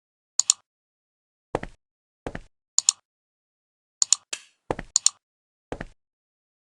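A string of short clicks and knocks with silence between them. Dull knocks alternate with sharp, high double clicks, about ten in all over a few seconds.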